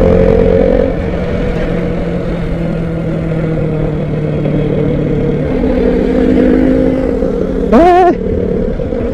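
A vehicle engine running steadily at road speed under road and wind noise, its note shifting a little higher about two-thirds of the way through. A brief voice cuts in near the end.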